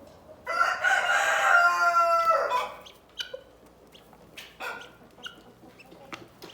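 A rooster crows once: a loud call of about two seconds beginning half a second in. It is followed by a few short clucks from the flock.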